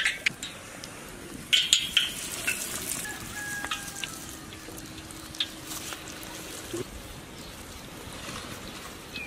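Breaded chicken pieces deep-frying in hot oil in a large kadai: a steady sizzle with scattered sharp crackles, busiest about one and a half seconds in.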